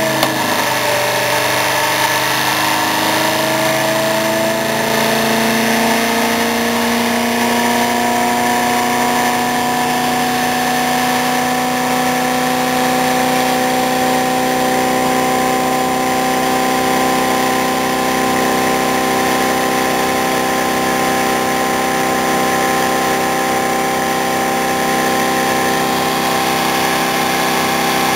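Homemade iron-core axial flux pulse motor running, a steady whine made of several pitches over a hiss. The pitch dips right at the start, then climbs over several seconds as the rotor regains speed, and holds level after that.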